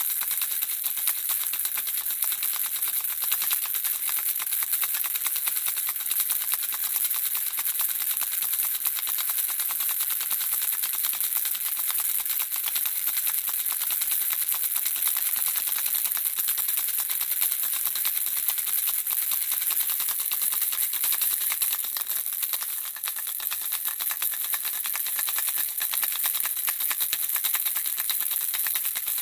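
Handheld baby rattle shaken without a break: small beads inside click in a dense, steady, high-pitched patter, dipping briefly softer about three quarters of the way through.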